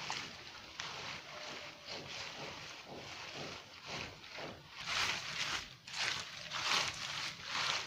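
Hands sweeping and sorting through a heap of small snakehead (murrel) fish on bare, gritty ground: irregular wet rustling and slapping, louder from about five seconds in.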